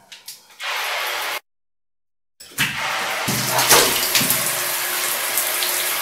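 Shower water running steadily, cut off to dead silence for about a second soon after the start, then running on again.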